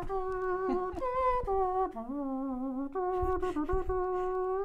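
A person humming a short tune with closed lips, holding a few notes that step up, drop to a low note in the middle and return to the opening note.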